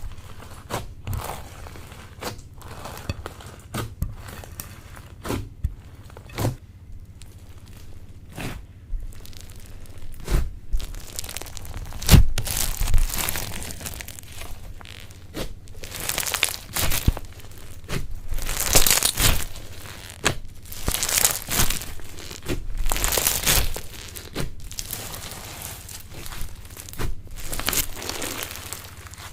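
Slime being squeezed, stretched and pulled apart by hand: an irregular run of sticky crackles, pops and tearing sounds, louder and busier in the second half.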